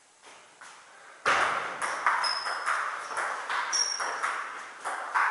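Table tennis rally: the ball ticking off the rubber bats and bouncing on the table in a steady run of sharp clicks, roughly two to three a second, starting about a second in after two faint bounces. A few brief high squeaks from shoes on the floor.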